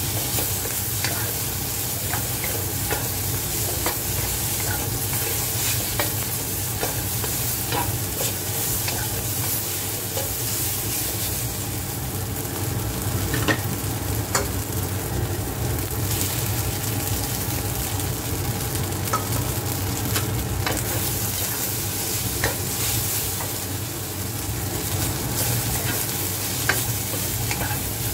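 Celery and tofu strips sizzling in a hot wok while a wooden spatula stirs and scrapes them, with scattered light clicks of the spatula against the pan. The sizzle softens for a few seconds about halfway through.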